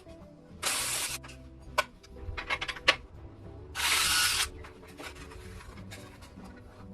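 Workshop tool noise: two short bursts of hissing, about half a second each, one near the start and one in the middle, with a few sharp clicks and knocks between them, over quiet background music.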